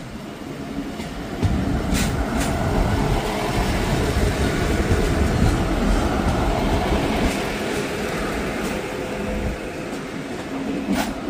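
DB class 628 diesel multiple unit passing close by: its diesel engine running under a loud, steady rumble of wheels on the rails, with two sharp clicks about two seconds in.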